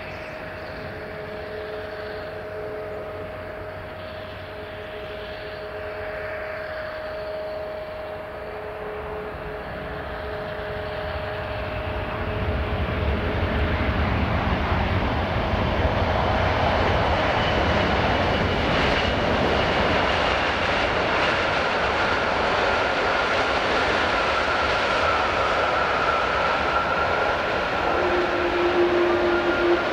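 Boeing 787 airliner's jet engines whining steadily on final approach, then a louder rushing noise from about twelve seconds in as it touches down and rolls along the wet runway.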